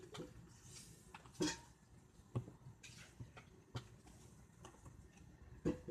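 A sheet of paper being folded and creased by hand. It makes soft rustles and a few sharper crinkles and taps, spaced about a second apart.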